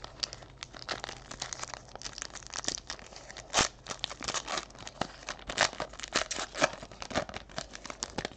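Foil wrapper of a Panini Elite Draft Picks football card pack being torn open and crinkled by hand: a dense, irregular run of sharp crackles.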